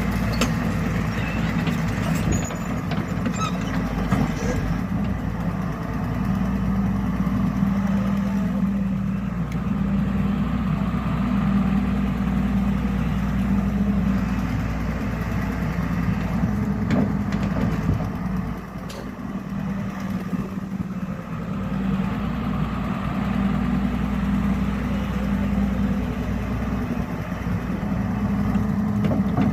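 Volvo excavator's diesel engine running steadily while the hydraulics work the swing, just repaired with a new swing-motor oil seal and now turning properly. A low drone swells in and out several times over the engine noise.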